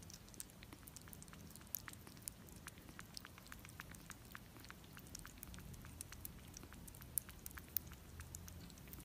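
Faint, irregular wet clicks, a few a second, from a young kitten lapping and sucking at the tip of a feeding syringe.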